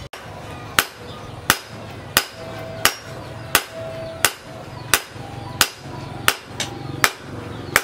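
Hand hammer striking a knife blade on a steel anvil while forging it, a sharp ringing blow about every 0.7 seconds.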